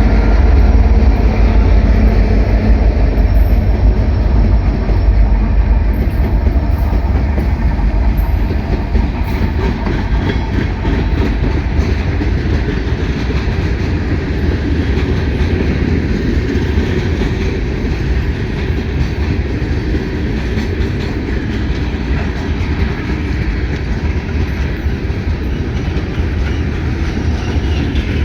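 Train rolling past close by: a steady heavy rumble of wheels on the rails, loudest over the first several seconds and then a little lower and even.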